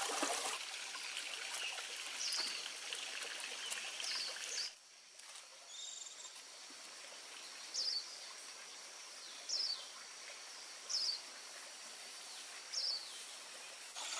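Water dripping and trickling back into a pond from a just-raised lift net, dropping away a few seconds in. Over it a bird repeats a short falling chirp about every one and a half to two seconds.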